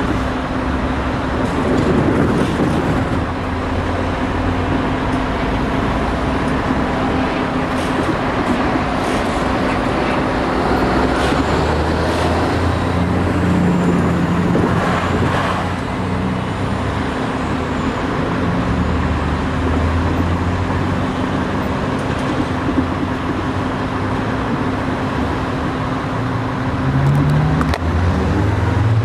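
Mariazellerbahn narrow-gauge electric train running along the line: a steady rumble with a constant low hum and scattered short clicks.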